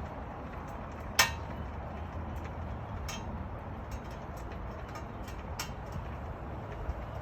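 Metal clinks from the truck's factory jack being worked by hand: one sharp ringing clink about a second in, then fainter clicks, over a steady low background rumble.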